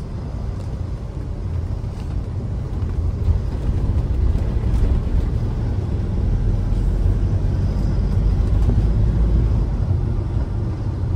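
Road and engine noise heard inside a moving passenger minivan's cabin: a steady low rumble that builds over the first few seconds.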